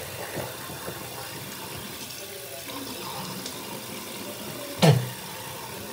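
Bathroom sink faucet running steadily, with one loud sharp knock about five seconds in.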